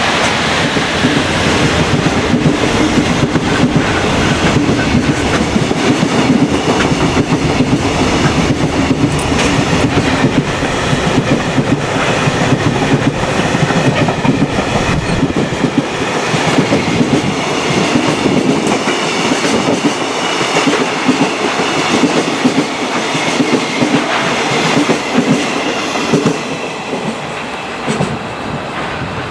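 Train running past at speed: a steady, loud rumble of steel wheels with rhythmic clickety-clack over the rail joints, easing a little near the end.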